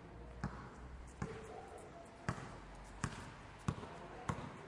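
A basketball being dribbled on a hard floor: six bounces at an uneven pace, roughly one every half second to second.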